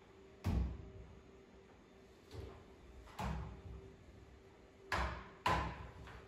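Long-handled floor mop knocking and sliding on a laminate floor: five separate knocks as the mop head is pushed and set down, each trailing off in a short swish.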